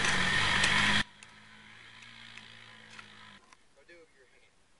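A person's shout over loud rushing noise, cut off abruptly about a second in. A faint steady low hum follows.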